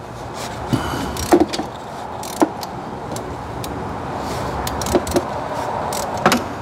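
Scattered sharp metallic clicks and clinks of a chrome hand ratchet with an extension and socket, fitted onto and worked on a 10 mm thermostat-housing bolt, over a steady background rush of noise.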